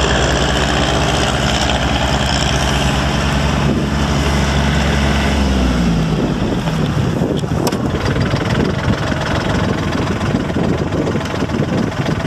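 John Deere 3120 compact tractor's three-cylinder diesel engine running steadily, its pitch falling about five to six seconds in as it drops to a lower, rougher idle.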